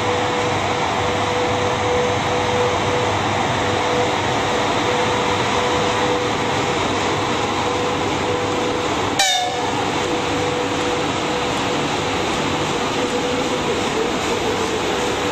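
Twin-section electric locomotive running slowly past: a steady rail rumble with a constant hum. There is one sharp click about nine seconds in.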